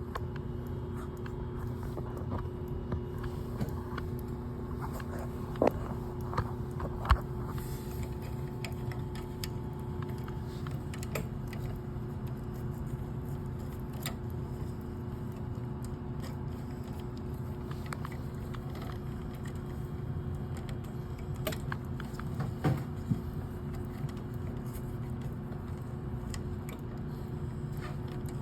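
Steady mechanical hum with a few sharp clicks and knocks from hand work: a cluster about six seconds in and another a little past the middle.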